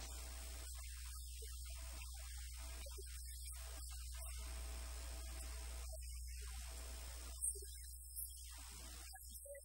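Steady low electrical mains hum in the audio feed, with a thin high whine over it and a couple of faint ticks near the end.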